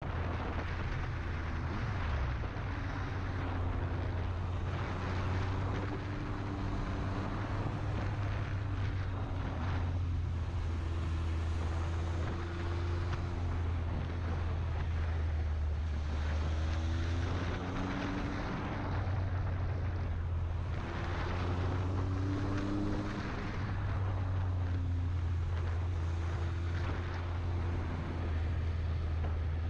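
Motorcycle engine running under way, with a steady low drone and a pitch that rises several times as it accelerates out of the bends, over continuous wind rush.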